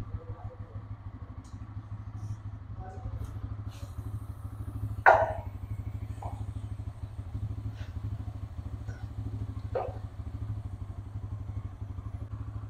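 Bajaj Pulsar N160 single-cylinder engine idling in gear on a stand, turning the rear wheel and chain, with a steady low pulsing hum. A few metallic knocks sound over it, the loudest and sharpest about five seconds in.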